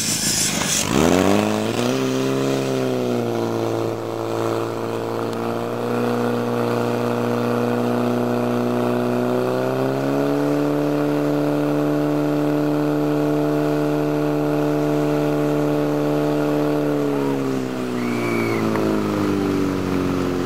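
Portable fire pump's engine revving up about a second in and held at high revs while it pumps water out to the hoses. Its pitch steps up again about halfway through and drops back near the end.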